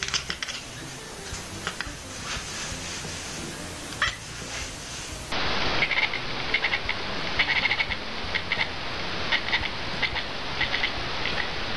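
Cat chattering: short clicking cheeps in quick runs, sparse at first, then louder and repeated in close groups from about five seconds in.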